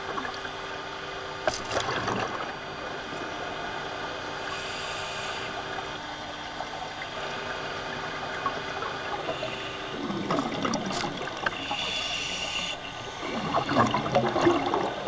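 Underwater sound of scuba divers breathing through their regulators, with exhaled bubbles gurgling and rushing in irregular bursts from about ten seconds in and louder near the end, over a steady hum.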